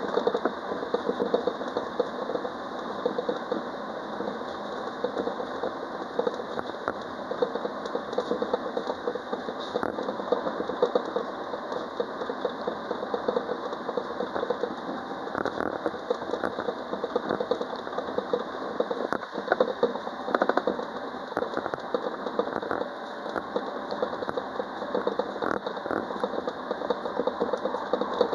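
Alstom Citadis Dualis electric tram-train running between stops, heard from the driver's cab: a steady running noise of the train on the rails, with many small clicks and rattles throughout.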